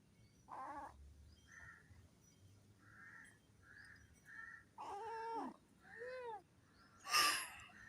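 A domestic cat making several short, squeaky meow-like calls as it yawns, each rising and falling in pitch, with the loudest and breathiest one near the end.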